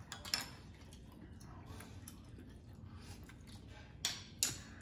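Quiet eating sounds at a meal table: faint chewing, with a sharp clink of tableware just after the start and two more close together near the end.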